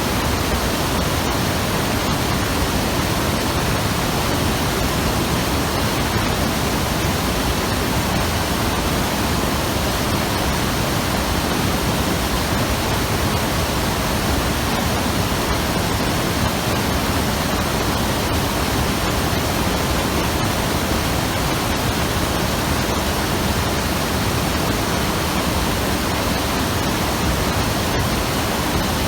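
Mountain river rushing over rocks: a steady, full roar of fast water with no breaks.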